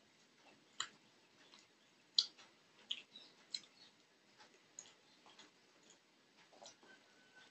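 Close-up eating sounds: scattered, irregular soft clicks and wet smacks of a person chewing a mouthful of food.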